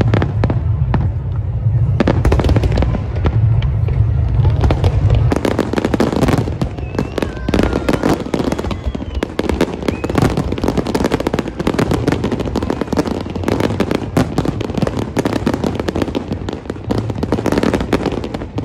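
Large fireworks display: shells bursting in rapid, continuous bangs and crackling. A heavy low rumble fills the first five seconds or so, then gives way to denser crackle.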